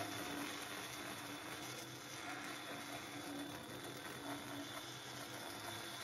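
Bandsaw running steadily as its blade cuts through an end-grain wooden chopping board, a constant machine hum under the noise of the cut.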